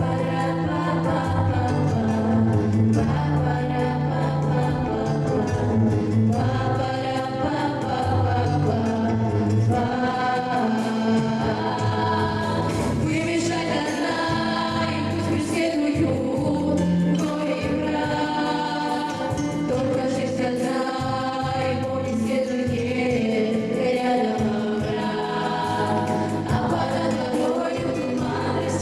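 Music: a song with several singing voices over a steady backing, with no speech.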